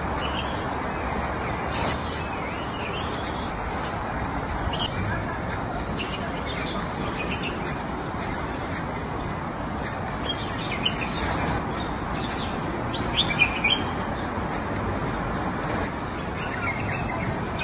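Small birds chirping in short, scattered calls, loudest a little past the middle, over a steady background hiss.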